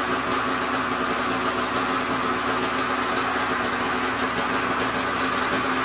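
Polaris 850 snowmobile's stock two-stroke twin engine idling steadily, warmed up. It is quiet, even through the stock exhaust.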